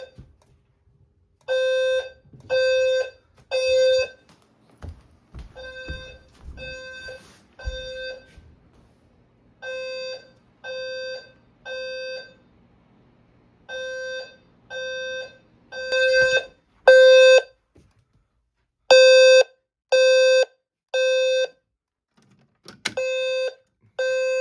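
Low-frequency fire alarm sounder sounding a buzzy tone of about 520 Hz in the temporal-three evacuation pattern: three half-second blasts about a second apart, then a pause, repeating. The level rises and falls between groups, and a few low thumps come through in the middle.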